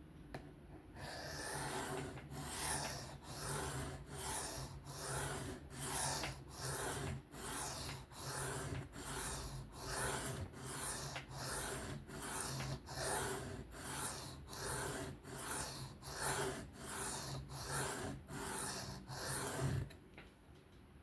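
A knife blade stroked back and forth across a sharpening stone by hand, a rasping scrape on each stroke in a steady rhythm. It starts about a second in and stops near the end.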